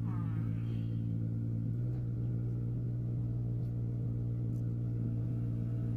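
Proton Gen2's four-cylinder engine idling steadily just after a push-button start, a constant low hum.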